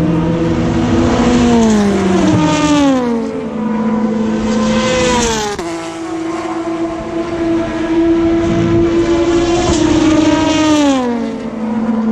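Le Mans endurance race cars passing at speed, several engines sounding at once. The pitch of each car drops sharply as it goes by, three times.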